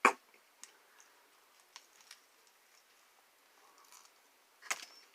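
Biting into pizza close to the microphone: a sharp crunch at the start, a few faint mouth clicks while chewing, and another short crunching noise near the end.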